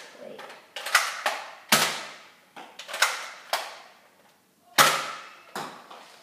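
Nerf Elite Strongarm dart blaster being fired repeatedly: a series of sharp pops and clacks, each ringing briefly in the hallway.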